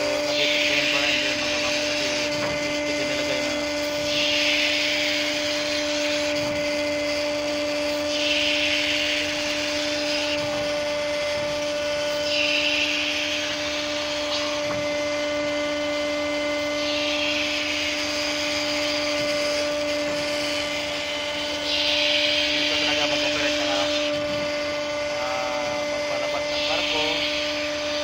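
Ship's hydraulic deck winch machinery humming steadily on two low tones, with a short hiss swelling up about every four seconds.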